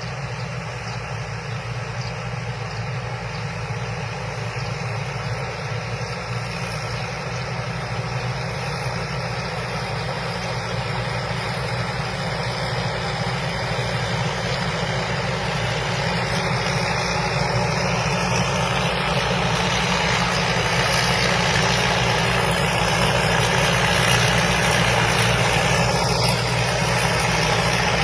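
Combine harvester's engine running steadily, growing gradually louder.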